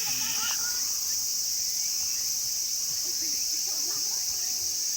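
Steady high-pitched chorus of insects shrilling in the trees, with faint voices now and then.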